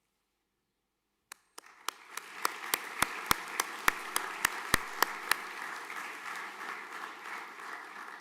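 Audience applause, starting suddenly about a second in, with a run of loud, evenly spaced claps about three a second standing out over it for the first few seconds; it begins to die away near the end.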